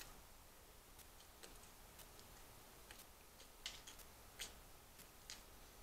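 Near silence with a clock ticking faintly about once a second, and a few short smacking sounds of someone eating about halfway through.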